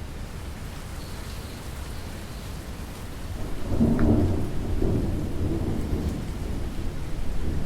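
Steady rainfall, with a roll of thunder that swells about three and a half seconds in, peaks with a sharp crack, then rumbles off over the next couple of seconds.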